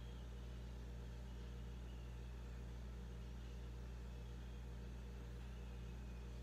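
Quiet room tone: a steady low hum with faint hiss, unchanging throughout.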